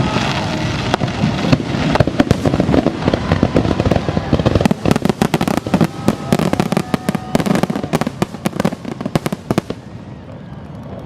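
Fireworks finale: rapid overlapping bangs and crackling bursts, densest in the middle and thinning out near the end.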